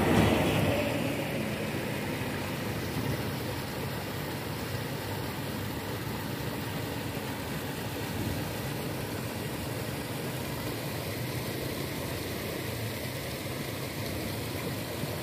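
Steady drone of the sand-pumping engine running at an even, unchanging speed while sand is being pumped.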